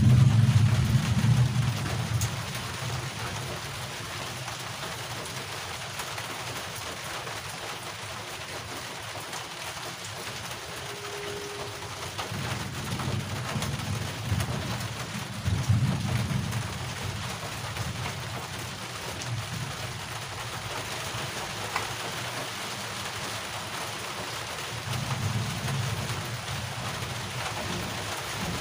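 Steady rain falling, with a low rumble swelling up a few times.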